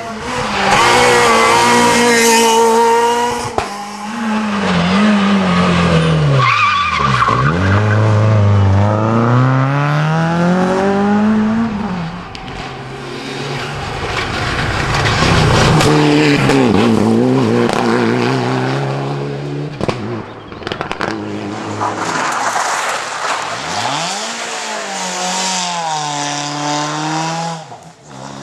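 Rally cars at full race pace on a tarmac stage, one after another. Their engines rev high and drop again and again through gear changes and braking.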